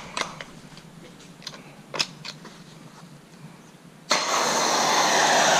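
A few small clicks, then about four seconds in a Kranzle 1122TST electric pressure washer starts up and sprays with a loud, steady hiss. It is being run to test whether a freshly tightened fitting still leaks.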